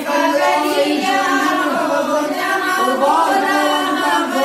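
A group of voices singing a Hindu devotional chant together, continuous and unaccompanied.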